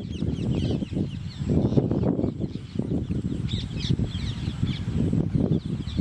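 Birds calling outdoors: many quick high chirps go on throughout, over a louder rough low sound that swells and fades about once a second.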